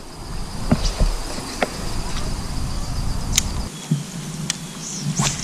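A steady high insect trill that stops a little past halfway through, with scattered sharp clicks and knocks over a low rumble.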